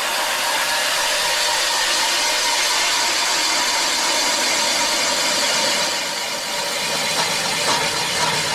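An engine running steadily under a loud, even rushing hiss.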